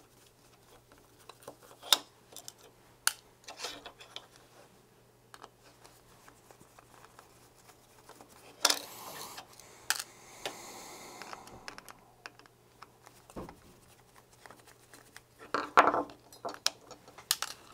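Small screwdriver backing screws out of a circuit board in a plastic camera housing, with scattered irregular clicks and light metal-on-plastic scrapes. A longer scraping, rustling stretch comes about nine seconds in, and a burst of clicks near the end as the board is handled.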